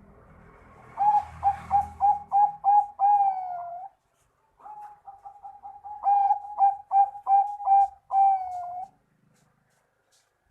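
Zebra dove (Bangkok-bred perkutut) singing its cooing song twice: each phrase is a quick run of short staccato coos ending in a longer drawn-out note.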